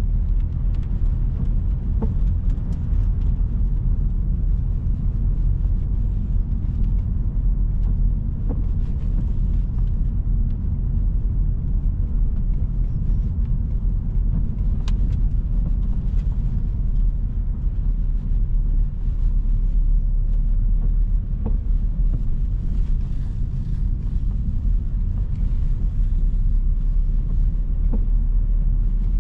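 A car driving: a steady low rumble of engine and road noise, with a few faint clicks and knocks now and then.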